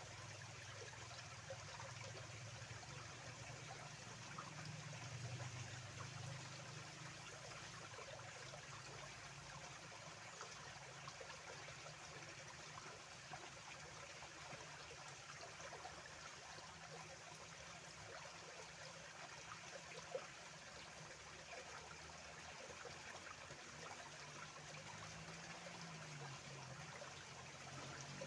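Small stream of water flowing and trickling steadily, with a low murmur beneath it. There is a single brief click about twenty seconds in.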